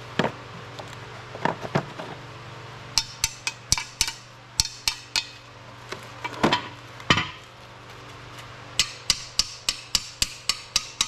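Hammer taps on a part during a truck water pump job: a few scattered strikes, then a quick even run of about a dozen light taps near the end.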